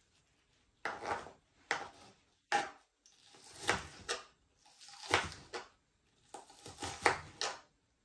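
Kitchen knife chopping red onion on a plastic cutting board. The chopping starts about a second in and comes in short, irregular runs of strokes with brief pauses between them.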